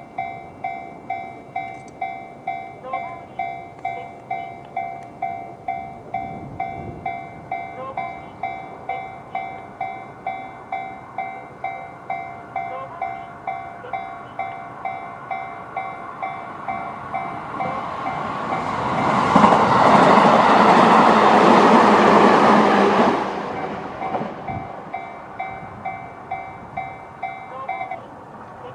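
A Japanese level crossing's electronic warning bell, in the JR standard tone, rings in a steady repeating pattern of roughly two strikes a second. About two-thirds of the way through, a JR 211-series electric train passes and its noise swells to drown the bell for about four seconds. The bell then rings on and stops near the end.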